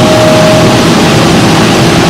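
Steady, loud machine noise from a CNC milling and tapping center at work, with a thin steady whine for about the first second.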